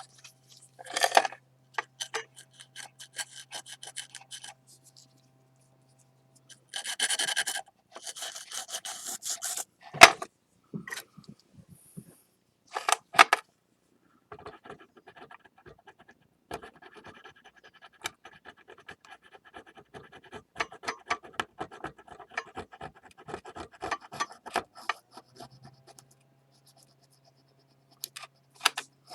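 Scraping and rubbing at the lacquered seam of a kintsugi-repaired ceramic plate, cleaning off excess lacquer, in irregular short scratchy strokes with a few sharp clicks.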